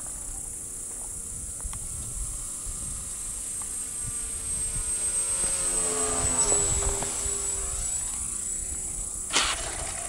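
Model Cessna 150's propeller and motor humming, growing louder as the plane passes low overhead about six seconds in and then fading. Near the end comes a single sharp clatter as the model hits the road on landing.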